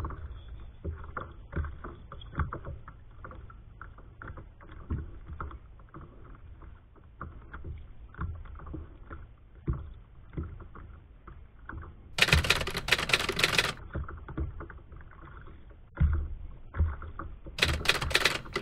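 Small irregular knocks and clicks of a fishing kayak on the water. Two loud rasping bursts come about twelve seconds in and again near the end, the second as a fish pulls the rod over: the reel's drag giving line to a hooked fish.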